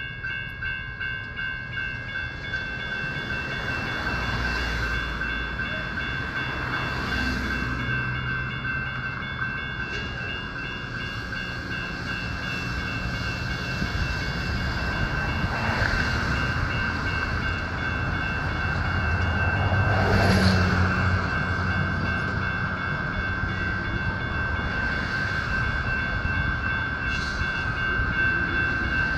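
Railroad crossing bell ringing rapidly and continuously through the crossing's activation, while a light rail train rumbles past, the rumble loudest about two-thirds of the way in.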